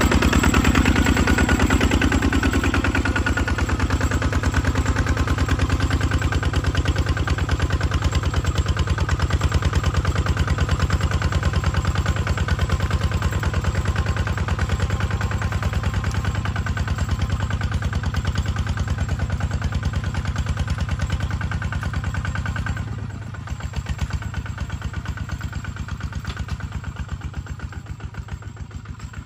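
Kubota ZT155 single-cylinder diesel engine on a two-wheel walking tractor, thudding with a steady rapid beat while pulling a plow. It grows fainter as the tractor moves away, dropping noticeably about 23 seconds in.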